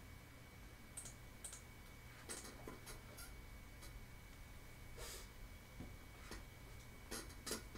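Faint computer mouse clicks, about eight of them at irregular intervals, over a steady low hum.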